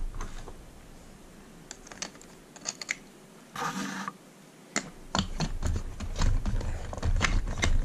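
Hands moving a plastic radio-control truck and its wheel and tire: scattered light clicks and taps, a short scraping rustle about three and a half seconds in, then a denser run of clicks and low knocks over the last few seconds.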